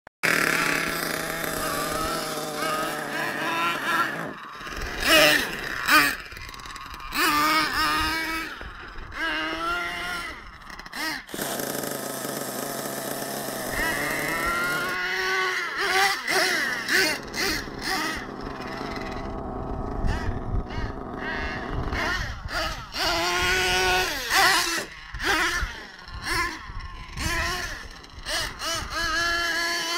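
Nitro-powered RC monster trucks, a Sledgehammer S50 and an HPI Savage XL, running hard, their small glow engines revving up and down in rising and falling whines. A couple of sharp knocks come around five to six seconds in and again near eleven seconds.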